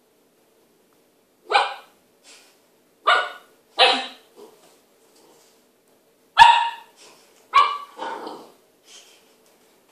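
Irish Setter puppy giving five short, high-pitched barks spread over about six seconds, with a few fainter yips between them.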